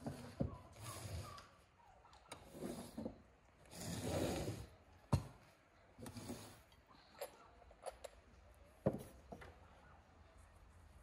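Tableware being set out and moved about on a cloth-covered table: several sharp clinks and knocks of plates and glassware set down, with rustling and sliding scrapes in between.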